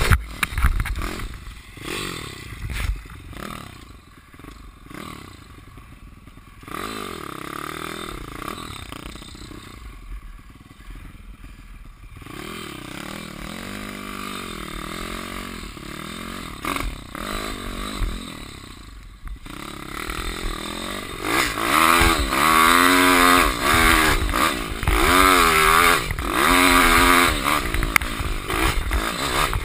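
Pitpro pit bike's 150 cc T-Rex engine ridden hard on a dirt track, heard from the rider's helmet: engine pitch rising and falling with throttle and gear changes. Through the middle it runs quieter at lower revs, then about two-thirds of the way in it revs loud and high again with quick rises and drops.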